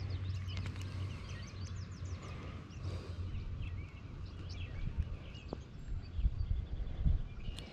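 Small songbirds chirping and calling over a steady low rumble, with a few soft thumps near the end.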